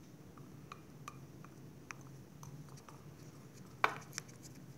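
Wooden popsicle stick stirring a watery guar gum and water mixture in a glass bowl: faint, irregular light ticks of the stick against the glass, with one sharper knock near the end.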